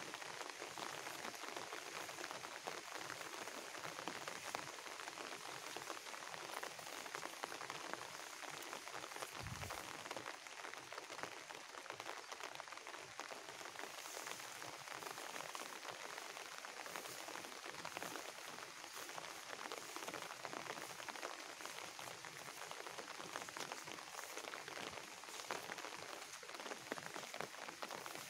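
Steady rain falling: a dense, even patter of raindrops.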